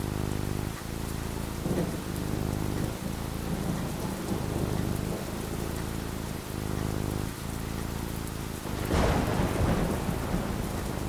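Steady rain falling, with low thunder rumbling throughout and a louder clap of thunder about nine seconds in.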